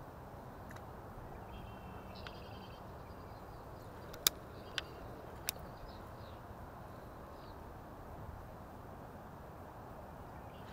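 Quiet outdoor ambience: a steady low background rumble, faint bird chirps about two seconds in, and three sharp clicks between about four and five and a half seconds in.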